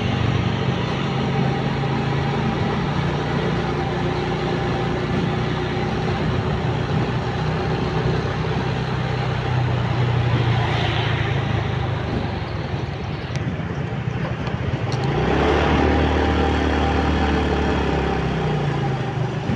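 Motorcycle engine running at a steady cruise with wind and road noise while riding. About fifteen seconds in, a louder, deeper engine sound swells for a few seconds before easing off.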